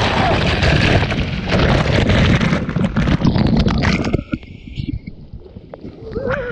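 Loud rushing of water and wind buffeting the rider's camera during a high-speed waterslide descent of about 48 mph. About four seconds in it cuts off abruptly to a much quieter, muffled sound.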